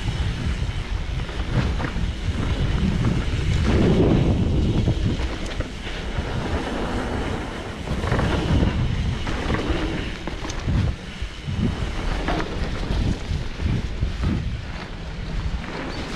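Wind buffeting the microphone of a camera riding on a mountain bike down a dirt trail, with tyre rumble and frequent short rattles and knocks from the bike over bumps.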